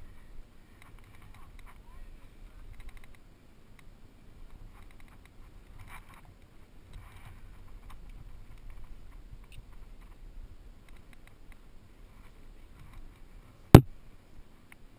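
Faint scuffing and rustling of a rock climber's hands and body moving on the rock, over a low steady rumble, with one sharp knock near the end.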